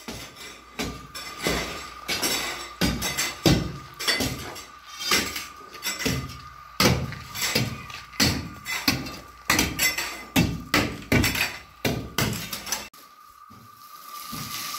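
Repeated strokes of a hoe chopping and scraping a gravelly dirt floor, about one to two a second. About two seconds before the end they give way to a steady hiss of water spraying from a hose.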